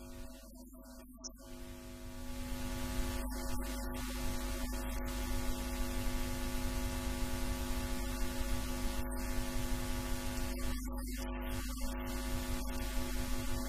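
Steady electrical mains hum with a buzzy stack of overtones over a low rumble, getting louder about two seconds in.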